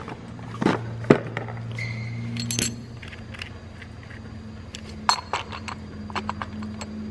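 A rifle scope being handled and set onto the top rail of an airsoft AR-15: scattered clicks and clinks of metal and plastic parts, over a steady low hum.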